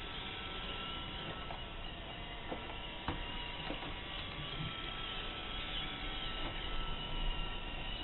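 Roomba robot vacuum running across the floor with a steady motor whir and brush noise, with a few faint clicks, the sharpest about three seconds in.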